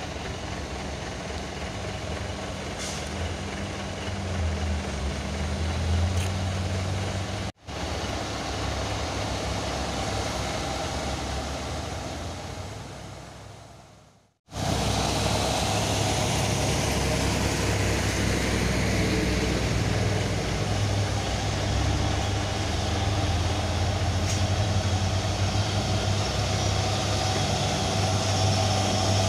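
Heavy diesel truck engines pulling up a hill in low gear, a steady low drone. It breaks off abruptly twice, about 7 and 14 seconds in, and is louder and steadier in the second half as a truck passes close.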